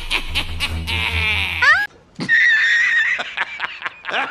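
Meme sound clips edited together: a wavering cartoonish voice over music with a pulsing bass, then a long steady high-pitched note, and a man laughing loudly starting near the end.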